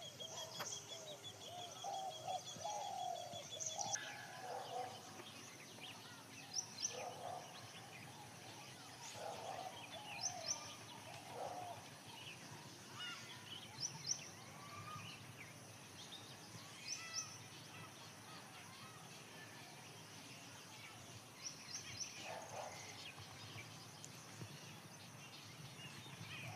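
Several birds calling outdoors: a fast trill in the first two seconds, then short high chirps and lower calls scattered throughout over faint background hiss.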